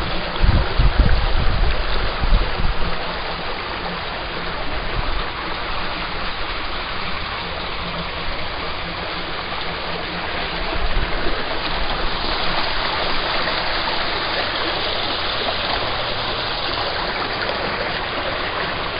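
Small brook rushing steadily over rocks, a constant even rush of water. Low wind buffeting on the microphone in the first couple of seconds.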